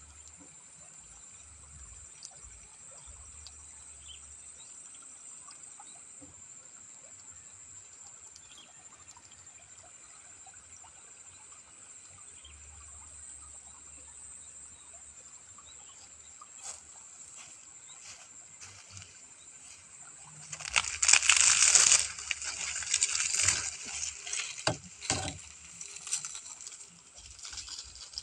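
Faint steady outdoor background of a small irrigation channel trickling, with a thin high steady whine. About twenty seconds in, loud irregular rustling and crackling of dry straw and grass starts and goes on in bouts to the end.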